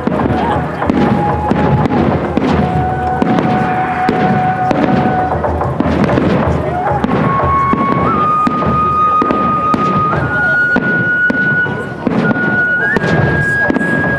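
Aerial fireworks bursting with repeated bangs and crackle, over music whose long held notes step upward in pitch.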